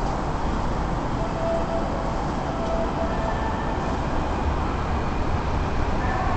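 Keikyu 1500-series electric train pulling out of the platform and moving away, its motors and wheels on the rails running steadily, with a faint thin whine that comes and goes.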